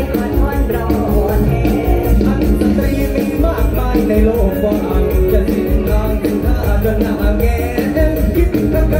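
Live Isan morlam band music played loud through the PA, with a steady fast beat and a male singer singing into a microphone.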